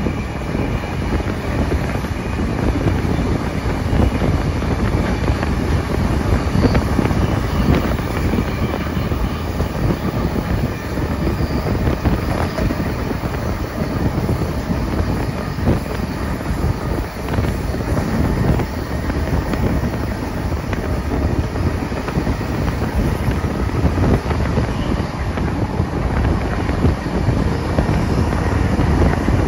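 Steam-hauled passenger train running along the line, heard from on board a carriage: a steady rumble of wheels on rail with wind buffeting the microphone.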